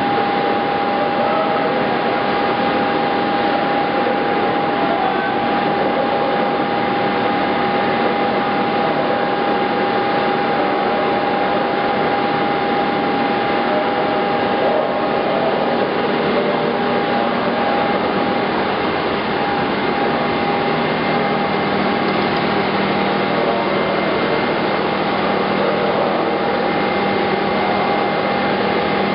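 SMTW H-163 cylindrical grinder running under power: a steady machine whine and rush with a constant high tone, joined by a lower hum about two-thirds of the way through.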